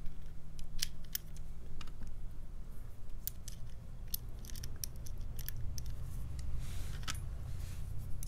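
Small metal padlock being handled and reassembled by hand: a dozen or so short, sharp metallic clicks at irregular intervals as the key works in the cylinder and the shackle is fitted into the body, over a steady low hum.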